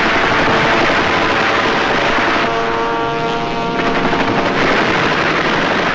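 Propeller fighter planes in flight, engines running loud and steady on an old film soundtrack. About two and a half seconds in, a pitched engine note rises out of the noise for about a second.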